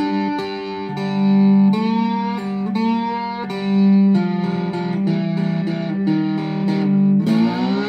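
Outro music on a plucked guitar: single sustained notes, with a slide up in pitch near the end.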